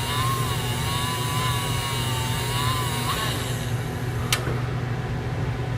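Small motor-driven sharpening wheel humming steadily as a steel hand graver is held against the spinning wheel, giving a wavering whine and hiss that stop about three seconds in when the graver comes off the wheel. A single sharp click follows about a second later.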